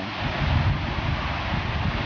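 Steady, loud rushing of a fast-flowing hill stream and waterfall, with a low rumble underneath.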